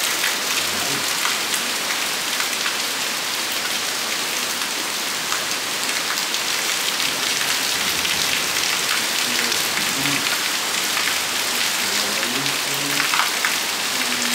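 Heavy rain falling steadily, an even hiss dotted with sharp ticks of drops striking close by.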